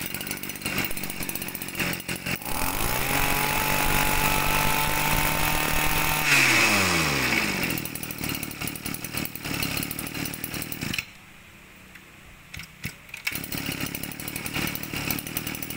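Kawasaki brush cutter's small two-stroke engine being started: some clatter, then it catches and runs steadily for about four seconds, then cuts out and winds down with falling pitch. Mechanical clicks and rattles from handling the machine follow.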